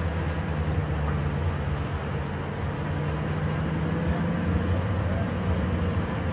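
Lexus SC400 being driven: steady engine drone with road noise, the engine note rising slowly as it gathers speed.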